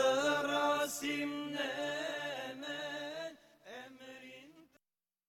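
A voice singing an Albanian Islamic devotional song (ilahi) in drawn-out, wavering notes. It drops away about three and a half seconds in, comes back with a last quieter phrase, then cuts to silence shortly before the end.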